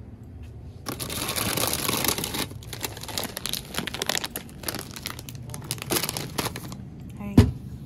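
A foil bag of Takis chips crinkling as it is grabbed and handled, loudest in the first couple of seconds, then in irregular crackles. There is a single sharp thump near the end.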